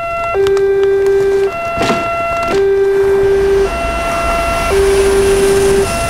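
Two-tone hi-lo siren of the ambulance kind, switching between a low note and a higher note about once a second. A short knock with a falling swoop comes near two seconds in, and a low rumble and hiss build from about four seconds in as a train passes the crossing.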